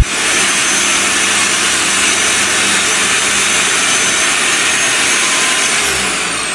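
Benchtop table saw running, ripping a pallet board along the fence. Near the end the motor is switched off and its whine falls as the blade spins down.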